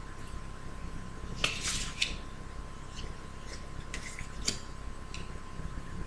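Tarot cards being handled on a table: a few short brushing slides and light ticks, scattered through the pause, over a faint steady high hum.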